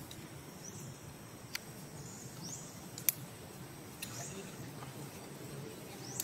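Outdoor ambience: a steady background hiss, with several short, high, rising chirps and three sharp clicks, the loudest about three seconds in.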